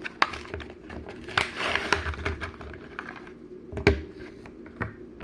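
A Hot Wheels car's blister package being handled and opened by hand: sharp plastic clicks and a stretch of crinkling and rustling.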